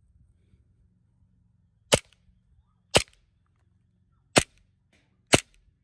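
A CO2-powered gel blaster pistol firing four single shots, each a sharp crack, spaced about one to one and a half seconds apart.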